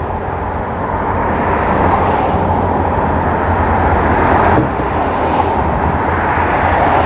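Road traffic rushing past: a steady noise of vehicles on the road with a low rumble, swelling until about four and a half seconds in and then dropping suddenly.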